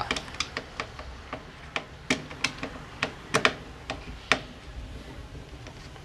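Screwdriver backing the screws out of a Skil electric drill's plastic housing: irregular sharp clicks and ticks, the loudest from about two to four and a half seconds in, thinning out near the end.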